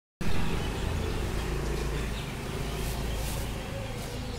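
Steady outdoor background noise with a low rumble and no single clear source, fading slightly toward the end.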